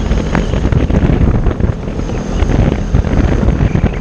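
Wind buffeting the microphone on a moving open-sided side-by-side buggy, with the buggy's engine running underneath.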